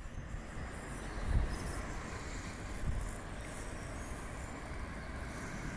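Road traffic on a suburban street: a steady hiss, with low rumbles that swell about a second and a half in and again about three seconds in.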